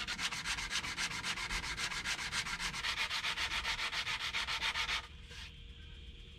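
Hand sanding with 150 grit sandpaper on the edge of a walnut wood veneer top: quick, even back-and-forth scratching strokes that stop suddenly about five seconds in.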